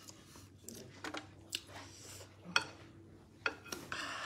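Close-up eating sounds from a person eating fisherman pepper soup by hand: chewing and mouth smacks with a few short, sharp clicks, and a brief rustle near the end as more seafood is picked from the bowl.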